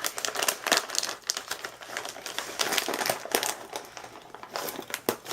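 Crinkly snack-chip bag being opened and handled: a dense run of sharp crackles, easing off for a moment about four seconds in.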